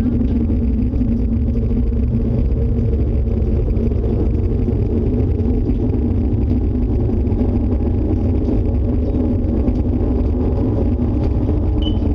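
Loud, steady low roar with a humming drone that does not let up, the noise the household takes for an approaching tornado.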